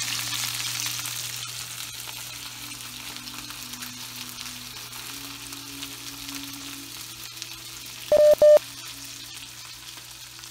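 Chicken frying in a cast iron skillet: a steady sizzle and crackle, loudest at first and slowly easing, over a low hum. About eight seconds in come two short, loud electronic beeps.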